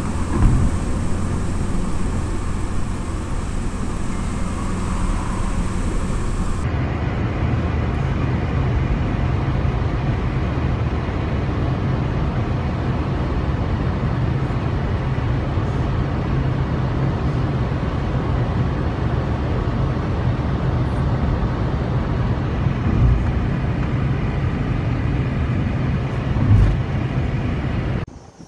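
Steady low rumble of a car driving, engine and road noise. The sound changes abruptly about six and a half seconds in, and there are a couple of thumps near the end.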